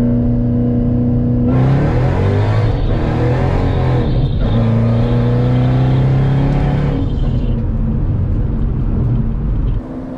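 Supercharged V8 of a Shelby GT500 with a VMP Gen 3R supercharger, driven hard. It holds a steady note, opens up into loud acceleration about a second and a half in, breaks briefly around four seconds, settles to a steady note again, then pulls hard once more before dropping off suddenly near the end.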